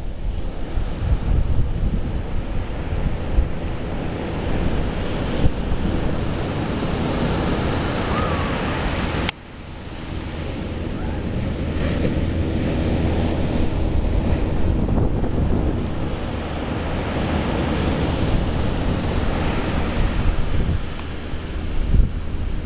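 Ocean surf breaking and rushing against the base of a sea cliff, with wind buffeting the microphone. About nine seconds in a sharp click cuts the sound down briefly before the surf swells back up.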